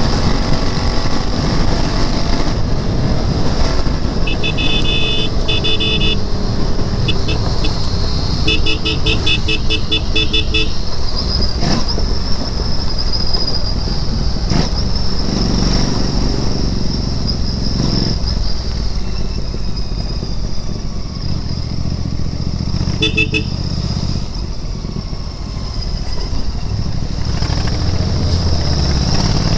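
Royal Enfield Interceptor 650's parallel-twin engine running while riding. Vehicle horns honk over it: two blasts about four seconds in, a run of quick short beeps around nine seconds in, and one short honk near the end.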